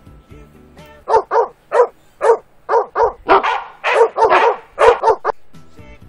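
Recorded dog barking played through the small speaker of a DIY PIR motion-sensor burglar alarm: about a dozen loud barks in quick succession, starting about a second in and stopping just after five seconds.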